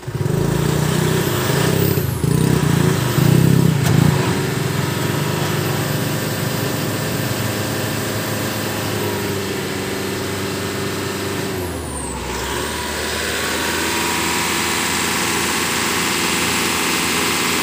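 An 80 kVA diesel generator set in a silent canopy starts up on power from jumper cables run from a car's battery. It catches at once, runs loudest for the first few seconds, then settles into a steady run, its sound shifting slightly about twelve seconds in.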